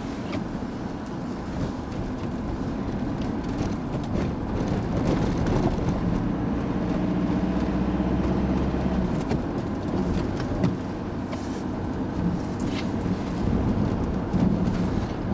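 Steady engine and tyre noise heard from inside a moving road vehicle on a wet road, with the engine note louder for a few seconds in the middle as it pulls harder, then easing.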